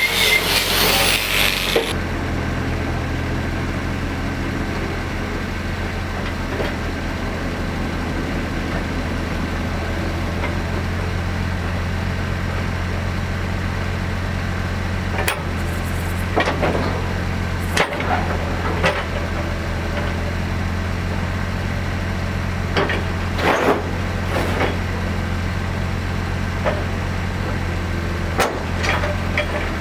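An engine running steadily with an even low hum. A loud hissing crackle fills the first two seconds and cuts off suddenly, and several short sharp knocks come in the second half.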